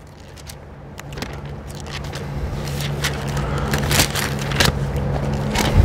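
Thin Bible pages being leafed through by hand, a run of papery rustles and flicks that grows louder as the pages are turned.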